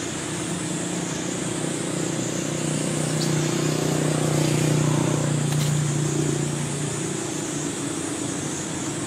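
A steady low motor hum that swells a little toward the middle and fades about seven seconds in, over a constant high hiss.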